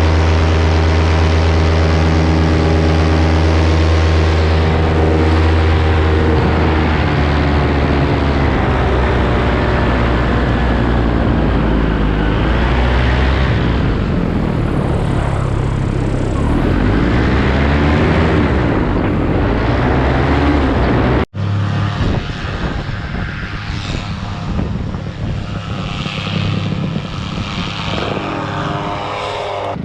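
Paramotor engine and propeller running in flight, a steady drone at first, then wavering up and down in pitch. It cuts out sharply about two-thirds of the way through and comes back quieter.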